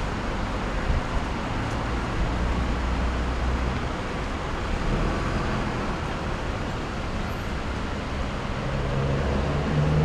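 Traffic at a road intersection: buses and cars running with a low, steady engine hum over a haze of road noise, growing louder near the end.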